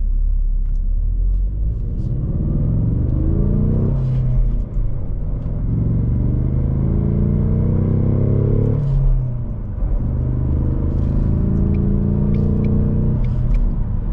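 Ford Mustang EcoBoost's turbocharged 2.3-litre four-cylinder accelerating hard, heard from inside the cabin with the top up. The engine pitch climbs in each gear, with upshifts about 4 and 9 seconds in, and it eases off near the end.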